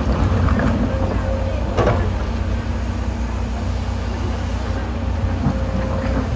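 Diesel engines of hydraulic excavators running at work, a steady low rumble, with a sharp clank about two seconds in and weaker knocks near the end.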